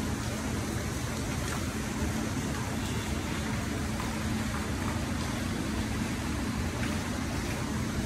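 Steady outdoor background noise: an even low hiss and hum, with one constant low tone running through it.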